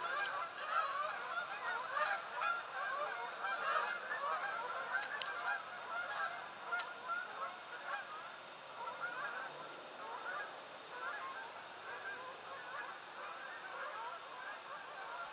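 A flock of geese honking as they fly over, many calls overlapping in a continuous chorus that slowly grows fainter.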